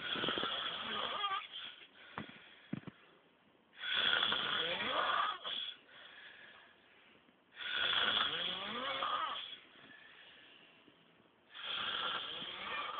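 A man snoring heavily in his sleep: loud, rattling snores about every four seconds, each lasting under two seconds, with quieter breaths between.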